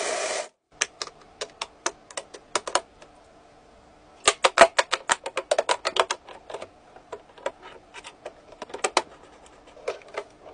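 LEGO Technic plastic parts clicking and snapping together by hand, with pins pushed into beams and pieces fitted on. The clicks come irregularly, in a dense quick run in the middle. A steady rushing noise cuts off about half a second in.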